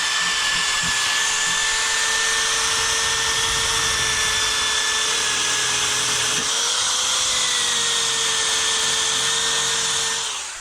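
Electric grinder running continuously with a steady high whine while grinding surface rust off the car's underside. Its pitch dips briefly about six and a half seconds in, then recovers. The sound fades out at the end.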